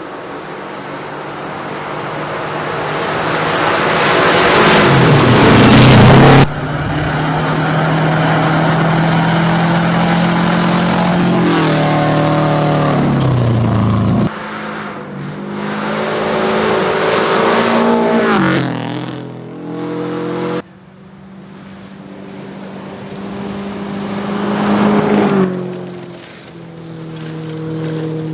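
Rally cars driven hard past the spectators, one clip after another: engines swelling louder as they approach, revs climbing and dropping back through quick gear changes. The sound breaks off abruptly several times between clips.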